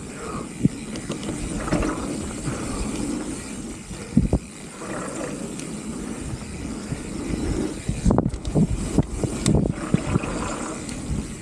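Specialized Turbo Levo electric mountain bike ridden along a dirt trail: tyres on dirt and wind on the microphone, with sharp knocks and rattles as the bike hits bumps, several in quick succession about eight to ten seconds in.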